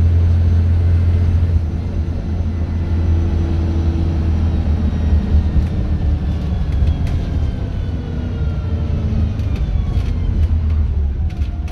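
Scania bus running with a deep, steady rumble. From about halfway, a thin whine falls slowly in pitch over it, and a few sharp clicks come near the end.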